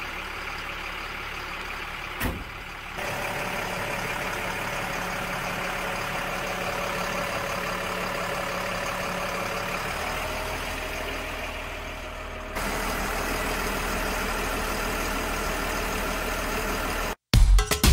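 M1078 LMTV military truck's diesel engine running steadily at idle while it drives the PTO winch, with one short knock about two seconds in.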